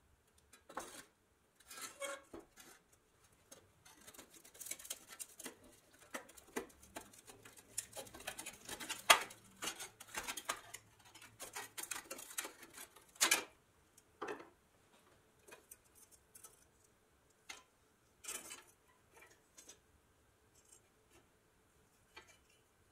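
Pressed-steel toy truck body and its rusty running board being handled on a workbench: irregular metal clicks, taps and scrapes, busiest in the first half, with sharp knocks about nine and thirteen seconds in.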